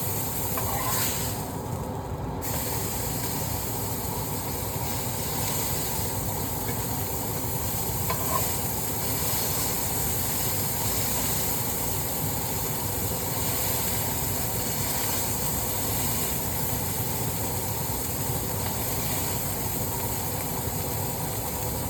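Burger patties frying in hot grease in a pan, a steady sizzling hiss.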